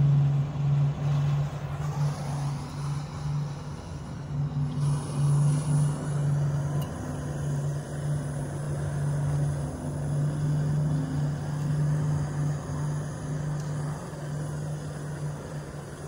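A steady, low engine drone holds throughout, a constant hum with no change in pitch.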